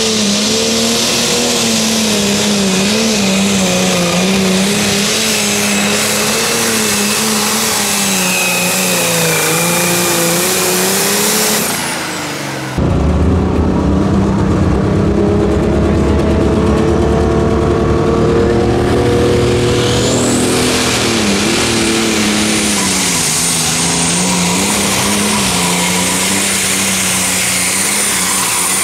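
Turbocharged diesel engines of super pro stock pulling tractors running flat out under load while dragging a weight-transfer sled. A high whistle rides over the engine note as it dips and rises. An abrupt change about 12 seconds in brings a second tractor's run.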